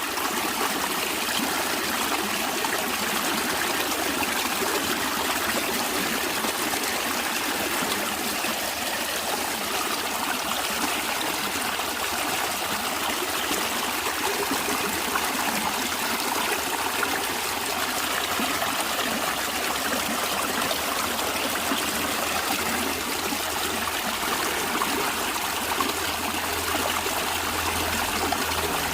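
Water in a stream flowing and trickling steadily.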